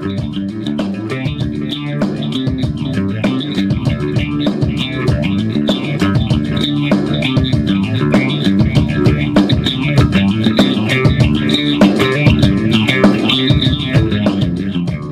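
Background music with bass and guitar and a steady beat.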